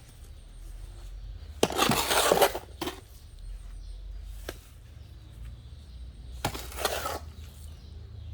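Hard objects clattering and scraping in two short bursts, about two seconds in and again near seven seconds, with a few single clinks between, over a steady low hum.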